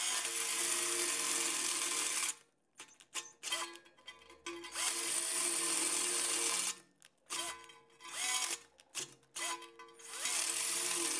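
Black Tools TB12A 12 V cordless drill running under load while drilling, in three trigger pulls of about two seconds each with short pauses between. Its chuck is now holding the bit without slipping.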